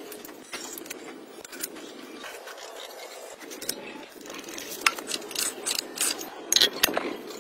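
Small metal parts and hand tools clinking and scraping against the cast-iron cylinder head of a two-cylinder diesel engine as the rocker arms and valve-train nuts are fitted. There are scattered sharp clicks, coming thicker and louder in the second half.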